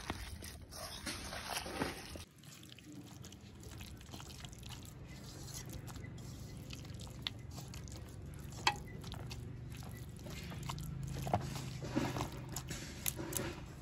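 A hand squishing and kneading shredded banana flower into a wet batter of gram flour and ground rice in an aluminium bowl: soft, continuous squelching with scattered sharp little clicks.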